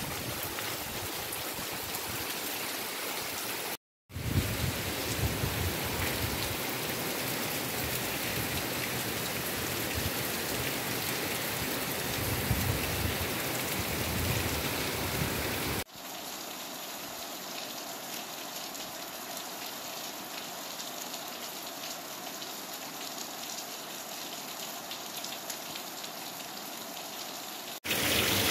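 Steady rain falling and splashing, in separate recordings joined by abrupt cuts: a brief dropout about 4 seconds in, and about 16 seconds in a switch to a quieter rain sound with less low rumble.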